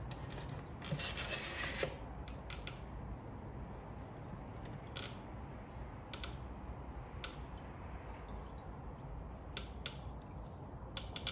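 Small parts being handled: a second of scraping, rubbing noise about a second in, then scattered light clicks and taps.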